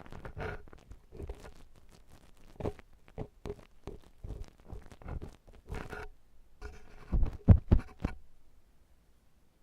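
An ear-cleaning tool scraping and tapping inside a silicone ear model: irregular scratchy crackles and soft thumps, with the heaviest thumps about seven and a half seconds in, then it goes quiet near the end.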